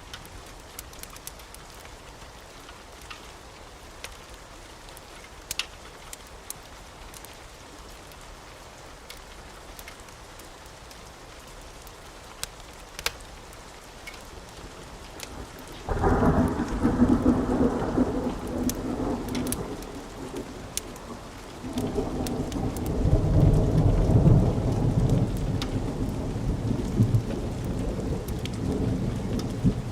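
Steady rain with scattered sharp clicks. About halfway through, a loud rumble of thunder breaks in suddenly, and a second, heavier roll of thunder starts about six seconds later and keeps rumbling.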